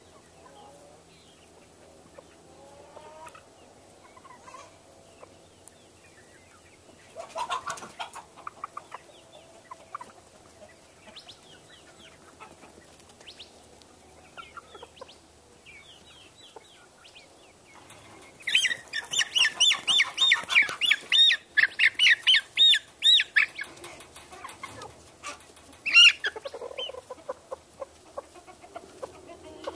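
Poultry clucking and calling as the birds leave the coops, mostly soft scattered clucks. Later there is a burst of loud, rapid calls repeated about five times a second for some five seconds, and near the end a single loud call.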